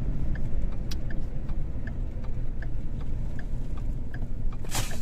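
Car interior: steady low engine and road rumble with a turn-signal indicator ticking evenly, about four ticks every three seconds. A short burst of hiss comes near the end.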